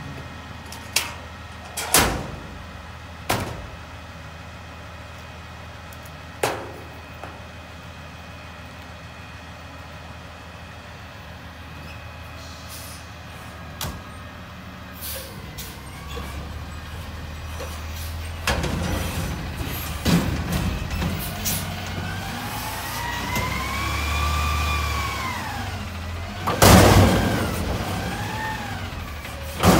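CNG front-load garbage truck dumping a steel dumpster. Several sharp metal clanks come early as the container is handled, over the idling engine. From about 18 s the engine revs as the McNeilus front-loader forks lift the container over the cab, with a whine that rises and falls in pitch, and a loud bang near the end as the container reaches the top.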